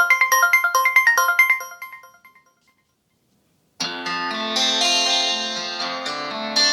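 Ringtones of an Infinix Zero Ultra smartphone played one after another. A melody of short, bright notes fades out in the first two seconds; after about a second of silence, a fuller, denser ringtone melody begins.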